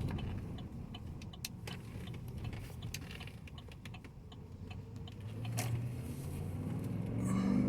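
Inside the cab of a 2019 Chevy Tahoe on the road: scattered light clicks and ticks over low road hum, then about five seconds in the 5.3-litre V8 engine note rises steadily as the truck accelerates.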